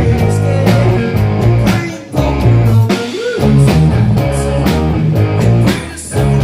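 Blues-rock band playing, led by guitar over a steady bass line with a regular beat.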